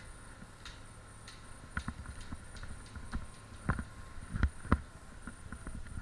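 Irregular footsteps and light knocks of gear as a player moves, with a few louder thumps in the middle.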